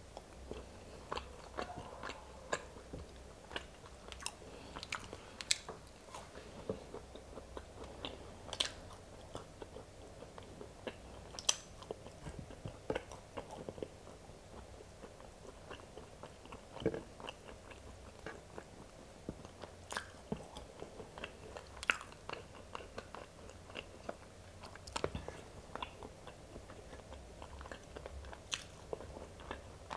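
Close-up chewing of firm boiled velvet bean (mucuna) seeds, with short sharp mouth clicks at irregular intervals.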